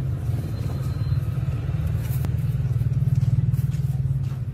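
A low, steady engine rumble with a fast, even pulse, a little louder about three seconds in.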